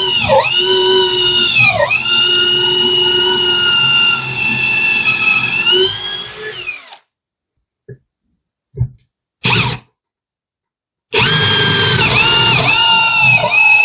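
Parkside Performance PABS 20-Li C2 cordless drill's brushless motor whining at high speed while drilling with a 10 mm bit, its pitch dipping again and again as the bit bogs under load. The whine dies away about seven seconds in, leaving a few seconds of dead silence with three short clicks, then starts again abruptly.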